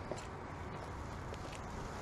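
Faint footsteps of a person walking on a flagstone path, a few soft taps over a low steady background rumble.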